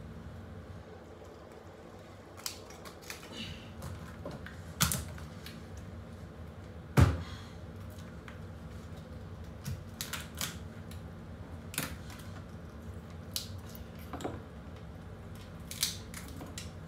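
Large kitchen knife cutting through a raw spiny lobster's shell on a wooden cutting board: irregular cracks, crunches and knocks of the blade, the loudest about seven seconds in.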